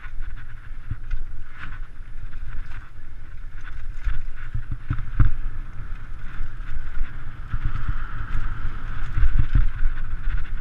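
Mountain bike running fast down a dirt forest trail: tyres rolling over dirt and rocks, with many thumps and rattles from the bike as it hits bumps. Wind buffets the camera microphone throughout.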